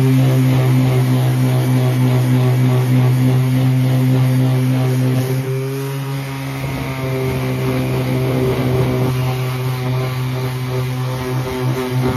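Handheld power sander running steadily, sanding down the plastic surface of a portable fuel tank; a rougher scraping texture joins about halfway through.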